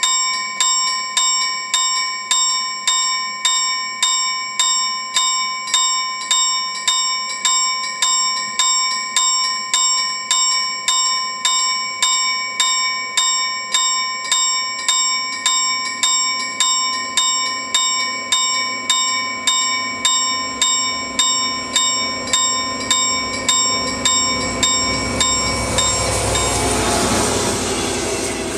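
Railway level crossing warning bell striking steadily, about one and a half strikes a second. From about halfway the low rumble of an approaching Dv12 diesel locomotive builds, and near the end the train passes close, its engine and wheel noise covering the bell.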